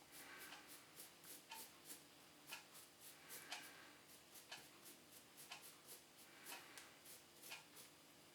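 Faint, irregular light ticks and scratches, a few a second: a small brush working loose model-railway ballast granules in between the sleepers of a piece of track.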